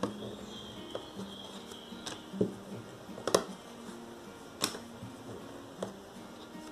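Cold porcelain (biscuit) clay being rolled out thin on a work surface: a handful of sharp clicks and taps of the rolling tool on the surface, irregularly spaced, the loudest about three seconds in, over faint background music.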